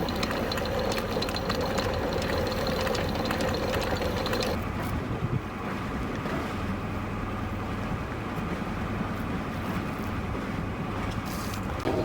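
Sailing yacht's inboard engine running steadily under way, with wind and water noise; a higher hum drops out about four and a half seconds in.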